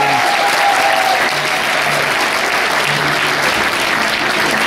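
Audience applauding steadily, with music playing underneath; a long held note ends about a second in.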